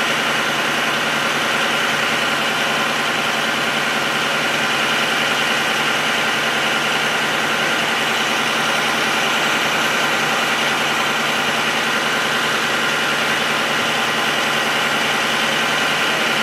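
A machine running steadily, with an even engine-like drone and hum that does not change.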